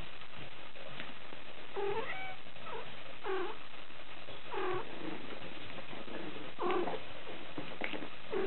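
Six-week-old Cavalier King Charles Spaniel puppy whining: about six short, high cries at uneven intervals.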